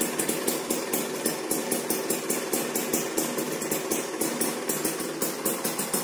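Suzuki Satria 120 two-stroke single idling through a Mams aftermarket expansion-chamber exhaust, with a regular pulsing beat of about three to four pulses a second.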